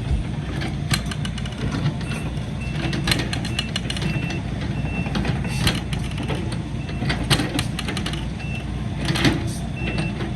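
Diesel engine of heavy earthmoving equipment running under work, with a backup alarm beeping about twice a second and scattered sharp clanks and knocks.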